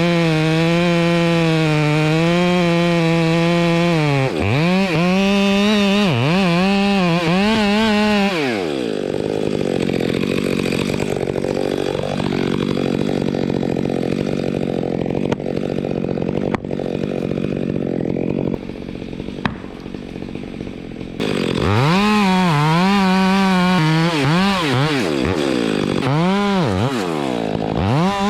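Gas chainsaw running hard, its engine note rising and falling as it is revved. For about ten seconds in the middle it settles to a steadier, lower drone and gets a little quieter, then it revs up and down again near the end.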